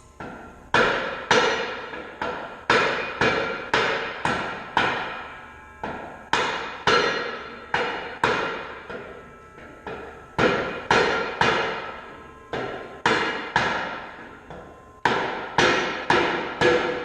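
Hammer blows on a disc harrow gang, struck through a block of wood: a series of heavy strikes about two a second, in runs with short pauses, each one ringing out.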